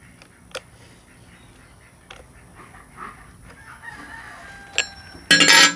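A rooster crowing, with a few sharp clicks scattered through and a short, loud, noisy burst near the end.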